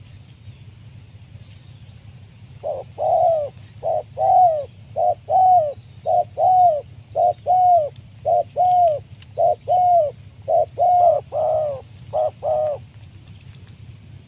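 Spotted dove cooing: a long run of about twenty short, arched coos, mostly in quick pairs, starting about three seconds in and lasting some ten seconds. A brief run of high ticks follows near the end.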